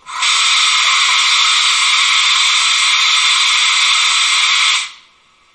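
A LokSound 5L sound decoder in a Gauge 1 model electric locomotive plays a whistle through its loudspeaker, likely the departure signal before the model starts moving. It is one steady blast of about five seconds that starts and cuts off abruptly.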